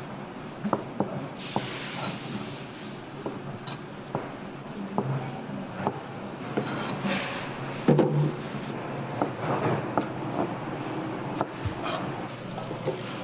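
Irregular knocks, clicks and clatter of hand food preparation, with the loudest knock about eight seconds in.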